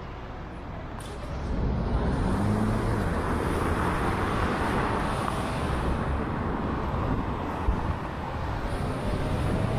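City road traffic heard from a bicycle riding among cars, a steady roar of vehicles and tyres that gets louder about a second and a half in, with faint engine notes rising in pitch as vehicles pass.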